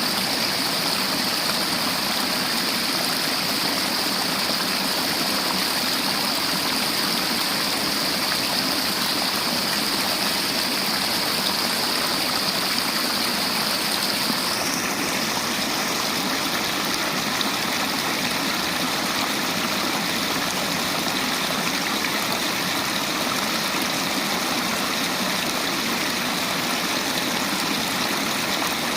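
River water flowing and splashing over rocks in a steady rush. Its high hiss changes tone about halfway through.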